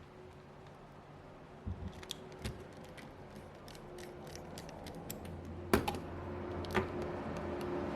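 Small sharp clicks and ticks of a precision screwdriver and small parts being handled while a tiny screw is driven into a Nintendo Switch Lite's frame, with a louder click near the middle and another about a second later.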